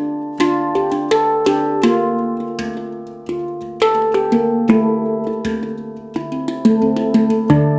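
Handpan tuned to D Kurd 9 (low D ding, A3 B♭3 C4 D4 E4 F4 G4 A4) played by hand: notes struck a few times a second in runs, each ringing on and overlapping the next, with the low D ding sounding strongly near the end.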